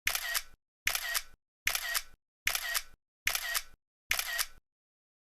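Single-lens reflex camera shutter firing six times at an even pace, a little more than one shot a second; each shot is a short clatter of clicks.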